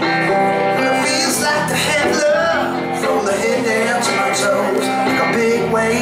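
Two electric guitars, a hollow-body and a solid-body, playing a song live.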